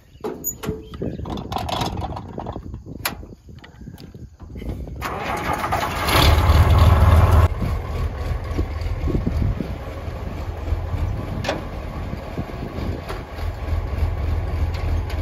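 Tractor engine starting: a few clicks and knocks, then about five seconds in it cranks, catches loudly and settles into a steady idle.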